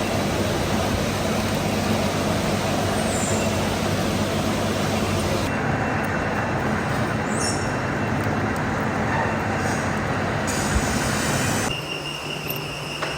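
Steady, loud machine-shop noise: heavy machinery running with a low hum and dense mechanical rush. It changes abruptly near the end to a quieter sound with a thin steady whine.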